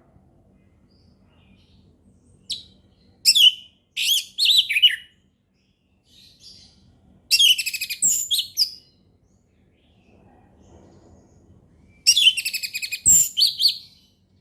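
Orange-headed thrush singing 'ngeplong': loud, varied high whistled and chattering phrases delivered in three groups with short pauses between them.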